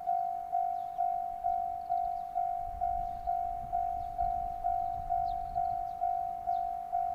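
Japanese railway level-crossing warning bell ringing steadily, about two strikes a second, which signals an approaching train. A low rumble swells and fades in the middle.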